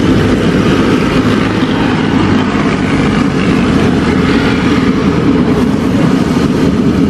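Gas burner running steadily with a loud, even roar under a wide wok of hot oil, with battered tempeh sizzling as it fries.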